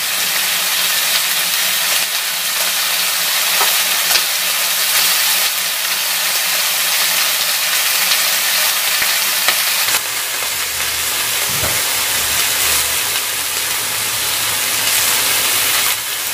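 Pork neck sizzling steadily on a hot round grill pan beside mushrooms and vegetables, a continuous frying hiss as the meat cooks.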